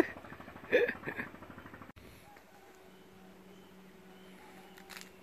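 A man's short wordless vocal exclamations in the first second, then a faint, steady low hum.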